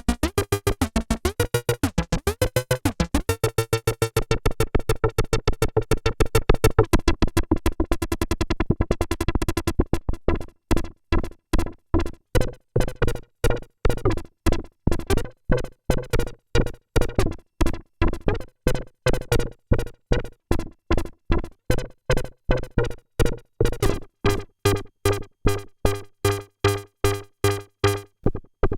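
EDP Wasp analogue synthesizer playing a fast repeating sequence of short notes. About ten seconds in, the notes turn short and clipped with gaps between them, evenly spaced at roughly two a second.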